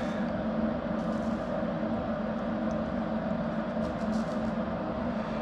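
Steady machine hum with several held low tones, like a workshop fan or cooling unit running, with a few faint ticks over it.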